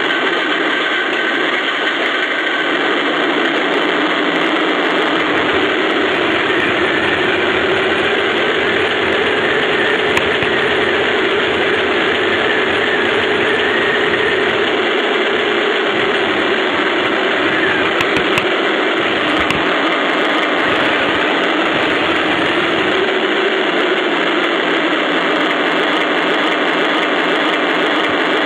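1:16 radio-controlled Tiger I tank running and driving: a steady engine-and-drive noise, with a deeper rumble coming and going in the middle while it moves.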